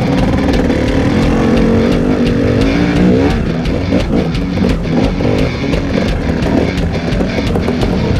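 KTM 300 two-stroke enduro bike engine running under way on a dirt trail: a steady note for about three seconds, then the revs rise and fall repeatedly as the throttle is worked. Many sharp knocks and ticks run through it.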